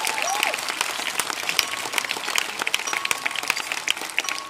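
Audience clapping, a spread of many separate claps that slowly dies away.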